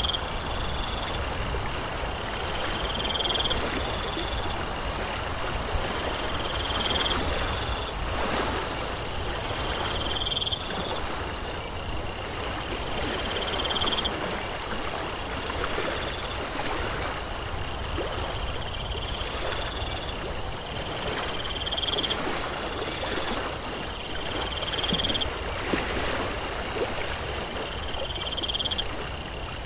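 Nature ambience of running water, with a short rising call repeating every few seconds and spells of a high, rapid trill like frogs or insects.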